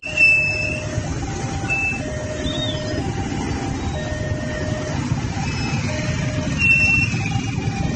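Many motorcycle engines idling together in a crowd, with a level-crossing warning signal sounding a two-tone low-high alternation about once a second.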